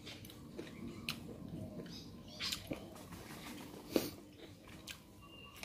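A man chewing a mouthful of food, with soft wet smacks and small clicks, and one sharper click about four seconds in.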